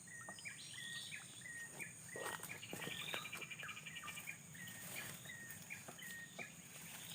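Birds calling, one repeating a short chirp about twice a second among other twittering calls, over a steady high-pitched insect drone.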